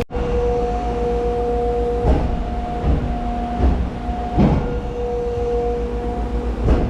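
A self-unloading tractor-trailer running as it pushes out a load of sawdust. A steady mechanical whine sits over a low rumble, with heavy clunks at uneven intervals, the strongest about halfway through.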